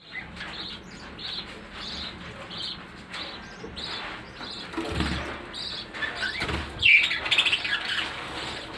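Budgerigars chirping: a run of short, high chirps, about two a second, then a louder burst of warbling chirps near the end. Two dull thumps come in between.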